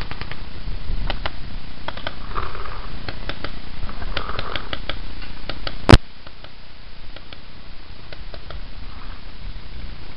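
Paintball markers firing in quick, irregular pops, thick for the first six seconds and sparser afterwards, over a low rumble of wind and handling. A single sharp knock about six seconds in is the loudest sound.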